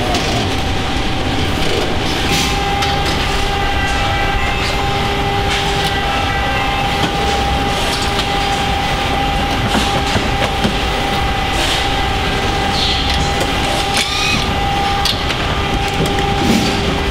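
Car assembly-line factory noise: a steady mechanical rumble and hum with a sustained tone, broken by scattered clicks and clanks of tools and parts as workers fasten components under a car hanging from the overhead conveyor.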